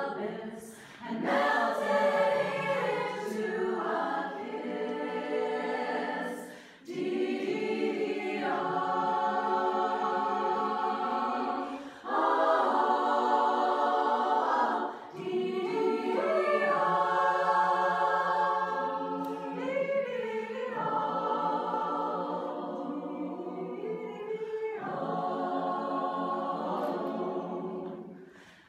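Women's choir singing a cappella: sustained, multi-voice chords in phrases a few seconds long, with short breaks between phrases.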